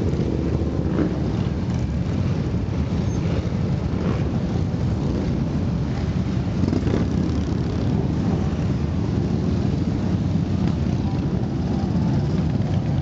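A long procession of motorcycles riding past, their engines running together in a continuous, steady drone.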